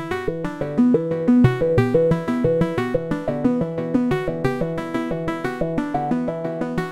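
Modular synthesizer playing a fast sequence of short pitched notes, several a second, each with a bright, harmonic-rich tone.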